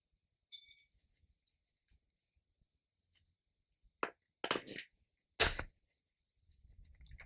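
A short metallic clink that rings briefly, then a few sharp knocks and clatters of hard parts being handled, with rustling near the end.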